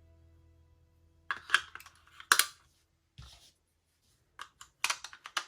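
Irregular clusters of sharp plastic clicks and clatters from small plastic parts being handled. A fading held note at the start dies away within the first second or so.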